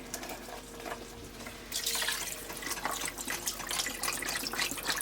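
Chicken broth being poured into the cooking pot: a steady splashing pour that starts about two seconds in.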